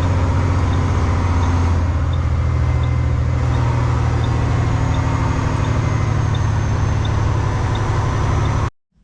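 Western Star semi truck's diesel engine running, heard from inside the cab, its note stepping up slightly about two seconds in, with a faint regular tick a little under twice a second. The sound cuts off abruptly near the end.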